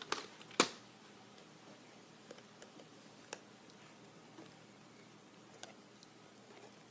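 Small hand-tool and plastic-part clicks from unscrewing an RC car: a sharp click about half a second in, then scattered faint ticks and taps.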